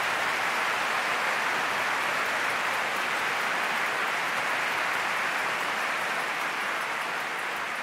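Large audience applauding steadily in a concert hall, easing off slightly near the end.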